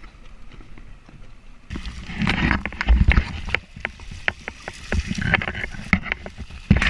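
A cast net full of pilchards being shaken out into a boat's livewell, starting a little under two seconds in: a dense clatter of sharp knocks and splashing as the net and the flapping baitfish hit the fibreglass and the water.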